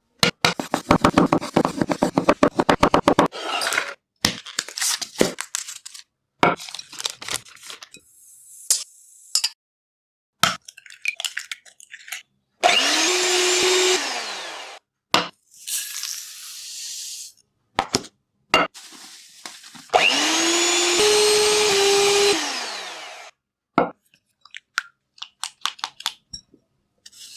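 Quick succession of food-preparation sounds: rapid clicking and tapping at first, then scattered knocks. Twice, a small electric kitchen motor spins up, runs for a second or two, the second time longer, and winds down.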